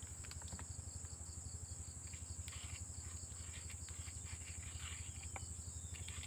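Steady high-pitched insect chirring, cricket-like, with faint scattered scrapes and taps of a pestle mashing tamarind sauce in a shallow mortar.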